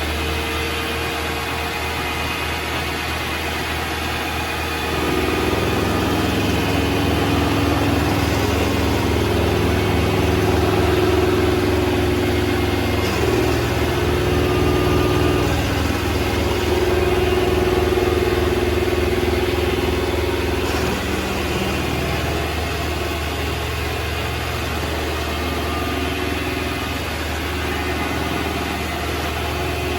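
Vevor MX400 mini lathe running with its spindle turning, a steady motor hum with a whine above it. It grows louder, with a stronger whine, from about five seconds in until about two-thirds of the way through, as a facing pass is taken on the end of a screw.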